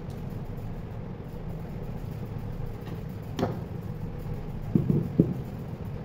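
DC gear motor being handled and set down on its side on a wooden bench: one knock just past the middle, then a quick run of three knocks near the end, over a steady low hum.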